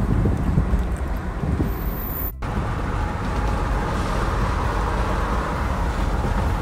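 Road noise inside a moving car: a steady low rumble with a hiss of wind and tyres. It drops out for an instant about two and a half seconds in.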